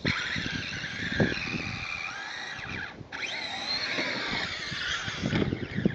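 Traxxas Summit RC truck with a Turnigy 2400KV brushless motor on a 4S LiPo being driven over dirt humps. The motor's high whine rises and falls with the throttle and drops out briefly about halfway through. The tyres crackle over the dirt.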